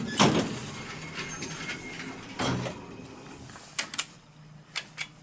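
A 2001 ThyssenKrupp (Dover) hydraulic elevator car running with a steady low hum, with a short rush of noise about halfway and several sharp clicks near the end as the car arrives and its door gear works.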